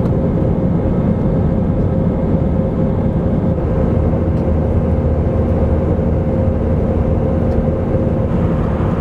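Steady cabin noise of an Airbus A320 airliner in cruise: engine and airflow rumble with a constant hum running through it.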